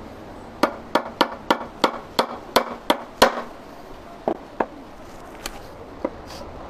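A screwdriver being knocked to free a tight screw on a Suzuki Mehran carburettor body, where the float needle valve seat sits: about nine sharp taps at roughly three a second, the loudest near the end of the run, then a few fainter, spaced taps.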